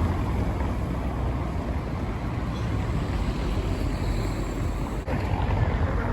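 Steady outdoor city street noise with a low rumble of traffic, dipping briefly about five seconds in.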